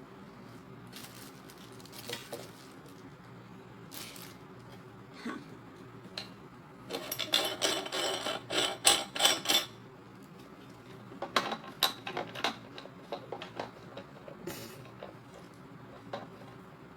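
Metal parts of a meat grinder clinking and clattering as they are handled and fitted together. Scattered clicks, a flurry of rapid clinks about halfway through, then a few more sharp clicks.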